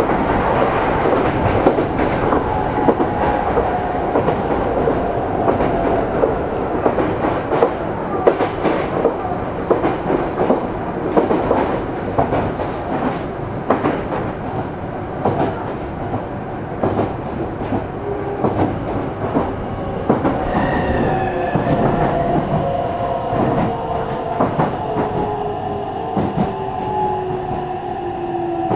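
Meitetsu electric train set 317F heard from on board, running with the clickety-clack of wheels over rail joints and the whine of its electric traction motors. The motor tones fall slowly in pitch as the train slows, more markedly in the second half.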